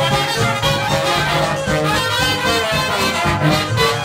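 Dixieland jazz band of trumpet, trombone, clarinet, piano, banjo, string bass and drums playing, with the trumpet and trombone prominent.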